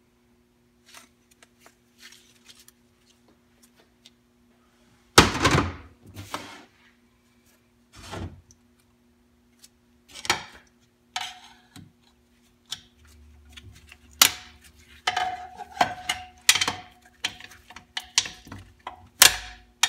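Metal parts of a 4L80E automatic transmission being handled during teardown: scattered clicks and clanks, a loud knock about five seconds in, and a run of knocks in the second half, one with a short metallic ring.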